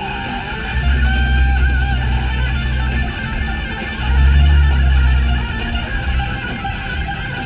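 Guitar-driven rock music with heavy bass notes.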